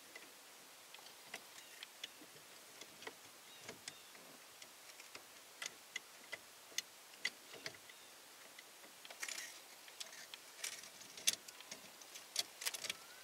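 Faint, irregular clicks and taps of hard plastic steering-column housing parts being handled and pressed together by hand, with a short scrape about nine seconds in and a cluster of louder clicks near the end.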